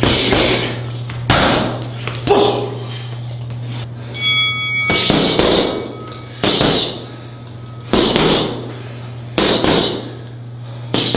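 Punches and kicks landing on a heavy bag in two-strike combinations: a hard thud about every one and a half seconds, each trailing off briefly. A short metallic ring about four seconds in.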